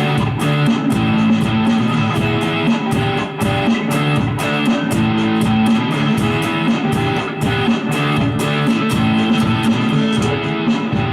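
Electric guitar with a dirty, overdriven tone through a Mooer GE200 multi-effects unit, playing a strummed rhythm part over a looped drum-machine beat to lay down a backing track. Sharp drum hits keep an even pulse under the sustained guitar chords.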